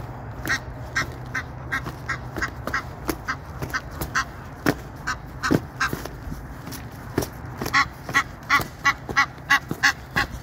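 Egyptian geese honking in a rapid, repeated series during a fight between two males, the honks coming faster and louder from about eight seconds in. Sharp slaps of beating wings are mixed in with the calls.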